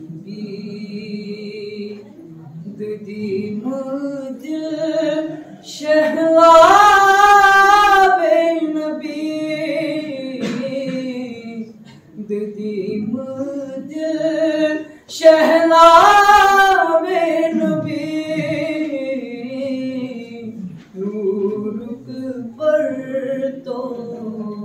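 A man reciting a naat, singing unaccompanied in one voice with long held, wavering notes. It swells loudest twice, about a quarter of the way in and again about two-thirds of the way in.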